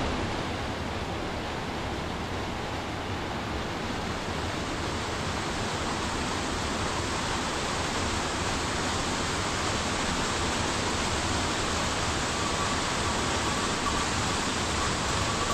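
Mountain stream cascading down a rocky gorge: a steady, even rush of falling water.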